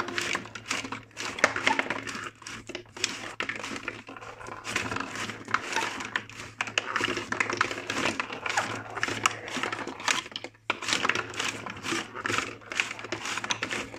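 Glass marbles clicking and rattling on a cardboard marble run and its cardboard escalator: a dense, irregular clatter of small clicks, with a brief lull about ten and a half seconds in.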